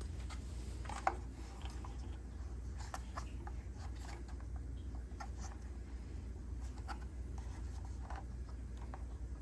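Electric water heater tank filling with water: a steady low rush of water flowing in through the pipes, with faint scattered ticks and clicks.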